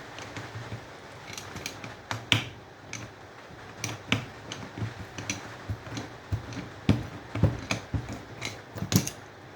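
Hand tools working on the metal parts of a stubborn breaker fitting: irregular sharp clicks and knocks of metal on metal, some louder than others, as the part is forced open.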